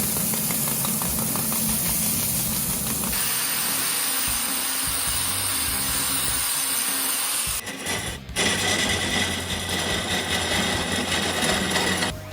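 Large wood lathe turning a block of wood while a cutting tool shaves it, a continuous grinding, cutting noise. The sound changes abruptly about three seconds in, again about seven and a half seconds in, and near the end, as one clip gives way to the next.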